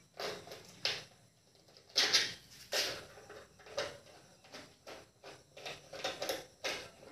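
Plastic wall switchboard being opened by hand: irregular clicks, knocks and short scrapes as the cover plate is worked loose and handled.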